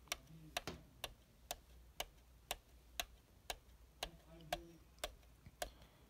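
Faint, regular ticking, about two ticks a second, keeping an even beat throughout.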